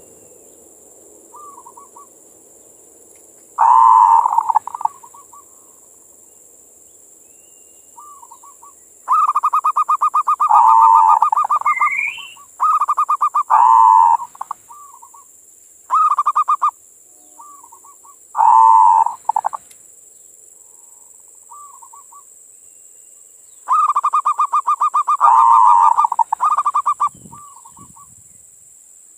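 Zebra dove (perkutut) singing its cooing song: about six loud bouts of rapid, pulsing coos, with short soft coos in the gaps between them.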